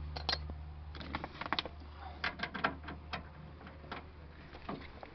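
Irregular metallic clicks and rattles, in short clusters, from a tool working the door handle's mounting screws on a car door.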